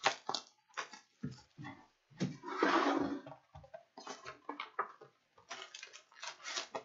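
Plastic shrink wrap crinkling and tearing off a trading-card retail box, then the cardboard box being opened and its foil card packs handled: a run of crackles and rustles, with a longer, louder tearing rustle about two to three seconds in.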